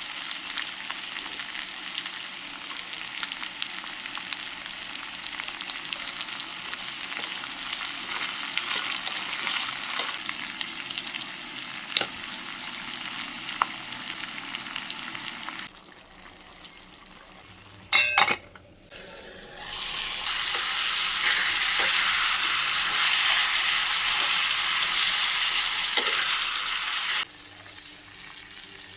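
Bitter gourd (karela) frying and sizzling in oil in a pan, stirred with scattered scraping clicks. The sizzle drops away suddenly about halfway, a brief metallic ring sounds, and the sizzling comes back louder before cutting off abruptly near the end.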